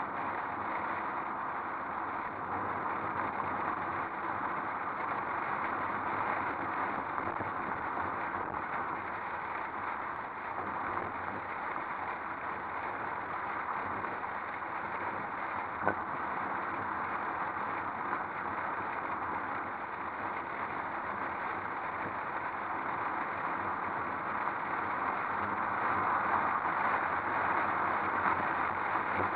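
Steady wind and road noise from a convertible driving along a street, with its engine running underneath, picked up by a camera mounted on the outside of the car. It grows louder near the end, and there is one sharp click just past halfway.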